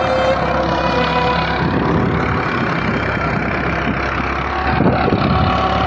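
Farm tractor engine running steadily while the tractor works a field, with a rougher churning noise joining from about two seconds in, fitting the rotary tiller behind it turning soil.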